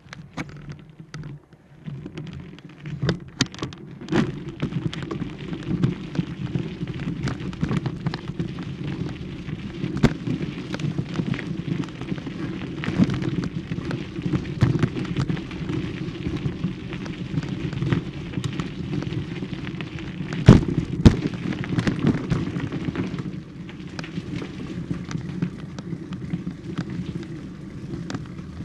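Rumbling, crackling wind and handling noise on a handheld camera's microphone, with frequent sharp knocks, two of them loudest about two-thirds of the way through; the noise eases off somewhat near the end.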